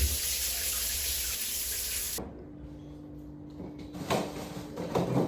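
Water running hard from a tap, shutting off abruptly about two seconds in, followed by a faint low hum and a couple of soft knocks.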